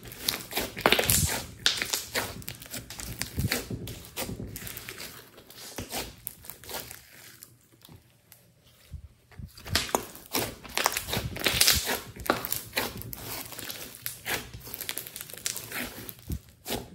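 Thick clay-mixed slime being squeezed and kneaded by hand, giving a run of irregular sticky crackles and pops. It goes quieter for a couple of seconds about halfway through, then picks up again.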